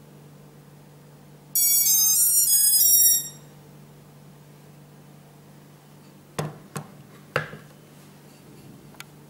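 A short electronic tune of stepped beeps, about a second and a half long, as the Hubsan drone links to its transmitter. A few sharp clicks follow several seconds later.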